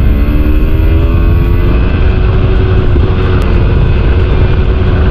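Single-cylinder sport motorcycle engine revving, loud and close to the exhaust. Its pitch climbs over the first couple of seconds, then holds at raised revs.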